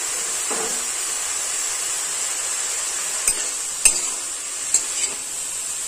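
Freshly steamed khesari greens sizzling with a steady hiss in a stainless steel karai, and a spatula clinking and scraping against the pan a few times in the second half as the greens are stirred to check whether they are cooked.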